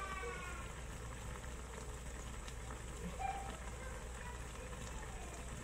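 Coconut-milk curry with tofu simmering in a wok, a steady even hiss, as it cooks down to absorb the coconut milk.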